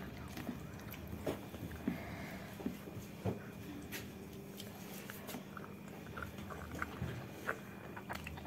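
A person chewing and eating by hand: soft mouth and chewing sounds with scattered small clicks and taps, over a faint steady hum.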